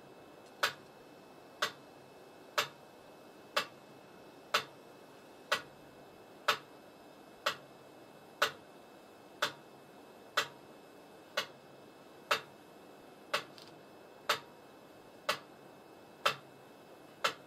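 Metronome ticking steadily at one click per second.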